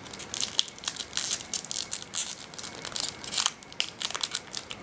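Foil Yu-Gi-Oh booster pack wrapper crinkling as it is torn open by hand, with quick, irregular crackles throughout.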